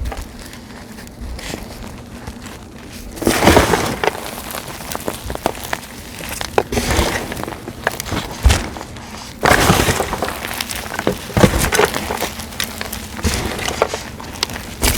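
Gym chalk blocks set with glitter paste, dried leaves and flowers being crushed and crumbled: crisp crunching and cracking in bursts, the heaviest about three and a half and nine and a half seconds in.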